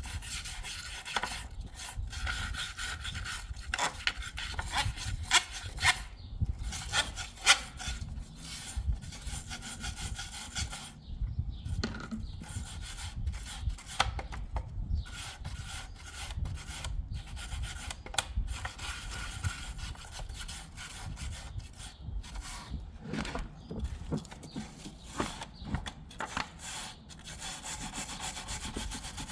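Repeated scraping and rubbing strokes of a hand tool against the GMC's removed intake manifold, cleaning off heavy carbon deposits, broken by short pauses.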